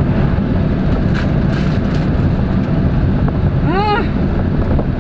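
Steady low rumble of a car running. A short rising vocal sound comes in near the end.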